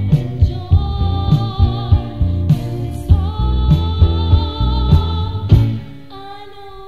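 Background music: a blues song with singing and a steady beat. Near the end the beat drops out, leaving one quieter held note.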